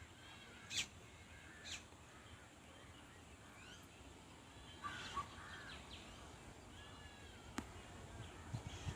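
Faint outdoor ambience of birds calling: repeated short calls, with two louder, harsher ones about a second apart near the start and another cluster midway, over a low steady rumble that grows slightly toward the end.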